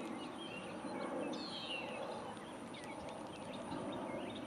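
Quiet outdoor background with faint, scattered bird chirps, a few short calls falling in pitch about a second and a half in, and a few light ticks.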